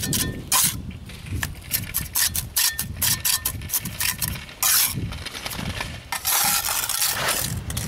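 Steel mason's trowel scraping and tapping wet mortar against clay bricks as bricks are buttered and set: a string of short scrapes and clicks, with longer scrapes about five seconds in and again between six and seven and a half seconds.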